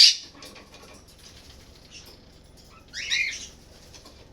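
Sun conure giving two short, harsh squawks: a loud one at the very start and a quieter one about three seconds in, with quiet between.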